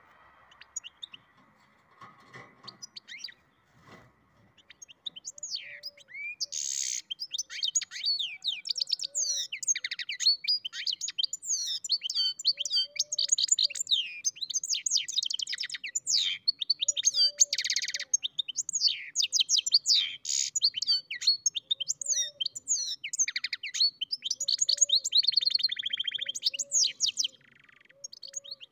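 Goldfinch × canary mule singing a long, fast twittering song of rapid trills and chirps. After a few scattered notes it starts in earnest about five seconds in, and it breaks off briefly near the end.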